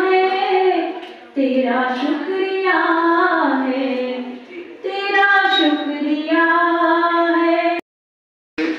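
A woman singing a slow song unaccompanied into a microphone over a PA system, with long held, wavering notes. A little before the end the singing cuts off abruptly to silence, then a man's voice begins.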